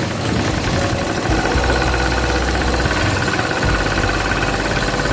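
Household sewing machine running steadily at speed, stitching a zigzag picot edge with a picot foot. Its low rumble swells a little partway through.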